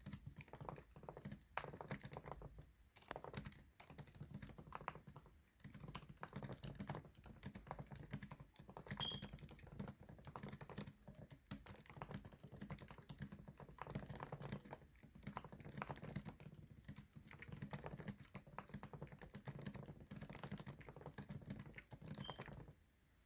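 Fast typing on a computer keyboard: a rapid, continuous stream of key clicks with brief pauses, stopping shortly before the end.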